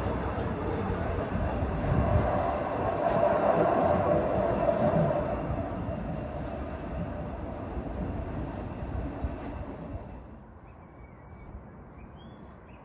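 Artxanda funicular car running up its rails as it climbs away, a rushing rumble that swells a few seconds in and then fades out over several seconds. Near the end, a few bird chirps are heard.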